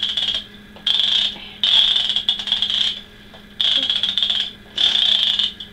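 Small handheld kitchen timer ringing in repeated high-pitched bursts of uneven length, stopping and starting as it is handled and set.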